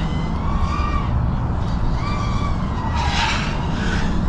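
5-inch FPV freestyle quadcopter's motors and propellers whining in flight, the pitch rising and falling in several swells as the throttle is worked, with a louder rush about three seconds in.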